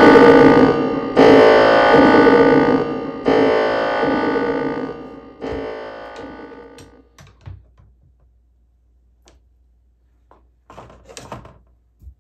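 Synthesizer keyboard music: sustained chords struck about every two seconds, each decaying, fading out about seven seconds in. After that come a few light knocks and a short scraping rattle near the end, from handling of the snake's glass enclosure.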